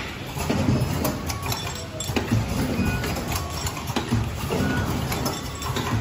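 Several vertical powder packing machines (water-soluble film sachet packers) running together: a steady mechanical clatter of clicks and knocks, with low thumps recurring in a rough rhythm.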